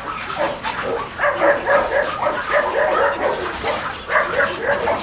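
Toy and miniature poodle puppies yipping and whining, a quick run of short high-pitched yelps, several a second.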